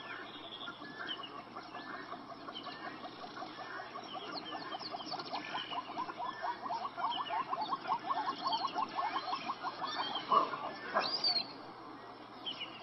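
Small fish packed in shallow water in a net, flapping and splashing. Over it runs a long, rapid train of short high chirps, with other bird chirps scattered through.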